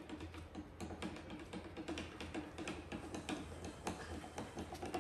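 A thin stirrer clicking against the side of a small cup as powdered formula milk is stirred, a quick uneven run of light taps several times a second.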